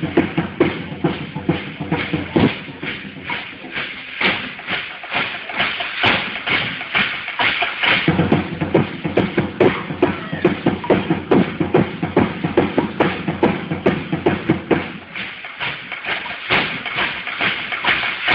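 Live percussion music for a Tlahuica traditional dance: drums keeping a quick, steady beat, with a dense high rattle over them.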